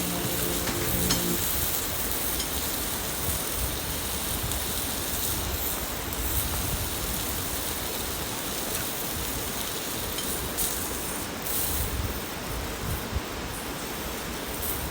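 Steady rushing of a mountain stream, with a few faint clinks. Background music ends about a second in.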